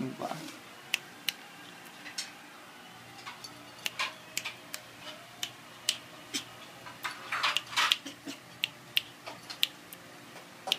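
A small dog's claws clicking on a ceramic tile floor as it moves about: irregular sharp clicks, with a quick flurry of them about seven to eight seconds in.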